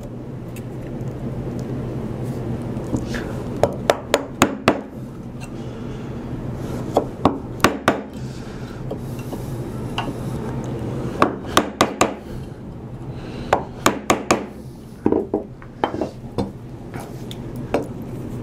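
Wood chisel struck with a mallet in several short runs of sharp taps, chopping down the sides of a dado in white oak to reach depth.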